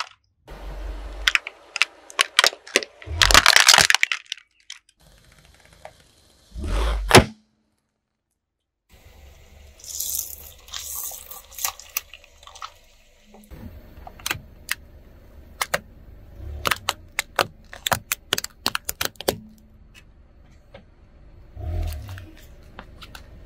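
Objects cracking and crunching as they are crushed under a car tyre: runs of sharp cracks and snaps, cut by two short silent gaps, then a long series of separate sharp clicks and cracks.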